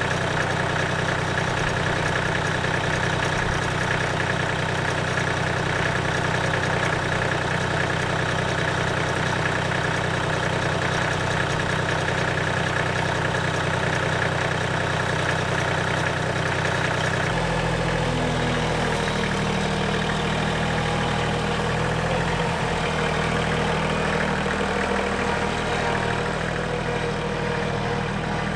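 Massey Ferguson compact tractor's diesel engine running steadily close by. About two-thirds of the way through, the engine note changes and takes on a deeper low hum.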